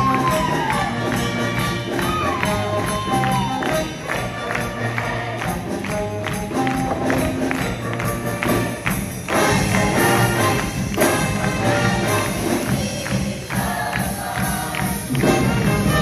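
Show choir singing in full voice over an accompaniment with a steady, driving beat and bright percussion, building toward the final pose of the number.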